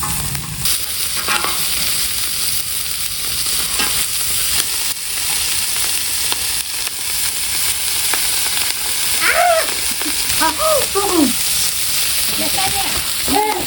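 Lamb ribs sizzling on a cast-iron cauldron lid, a steady frying hiss.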